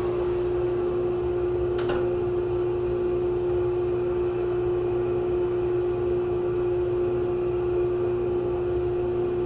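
Vacuum-powered dust collector running steadily with a constant hum and whoosh of suction. A single short click sounds about two seconds in.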